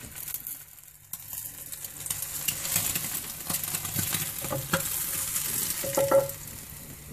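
Fried eggs sizzling in a hot frying pan as they are tipped and slid out onto a plate, with a few scrapes and clicks. The sizzle starts about a second in and fades near the end.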